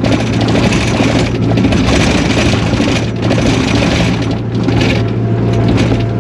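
Takeuchi TL240 compact track loader's diesel engine running steadily with a constant low hum and a clattering rattle over it, loud enough that the operator can't hear himself think.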